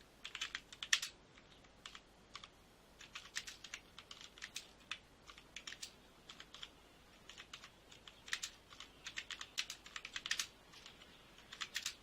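Typing on a Trust Classicline wired keyboard's soft membrane keys: irregular flurries of quick key clicks with short pauses between them.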